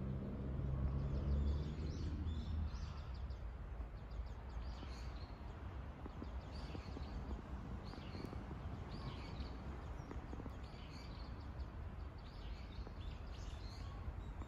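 Small birds calling with short high chirps every second or two over a steady low rumble. A low engine hum slides down and fades out in the first two seconds.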